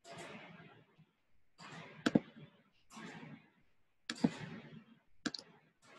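Computer mouse clicks: a few sharp clicks, one quick pair about two seconds in and single clicks later. Soft rustling noises come roughly once a second between them.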